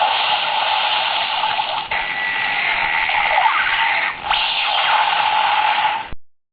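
DX White Wizard Driver toy belt's small speaker playing a tinny rushing-water sound effect, in three stretches that each start afresh, cutting off suddenly near the end.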